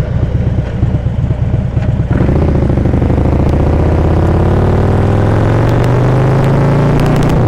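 Harley-Davidson V-twin engine pulsing at low revs, then accelerating about two seconds in, its pitch climbing steadily as the bike pulls away.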